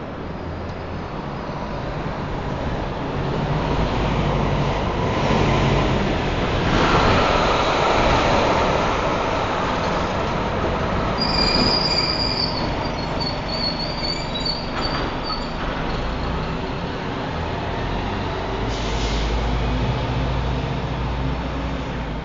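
Elevated subway train passing over a steel elevated track. Its rumble builds over the first few seconds and stays loud through the middle, with high-pitched wheel squeals about halfway through, then eases off near the end.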